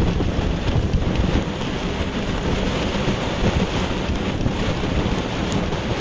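Heavy rain driven by strong wind: a steady, dense rush with a heavy low rumble under it.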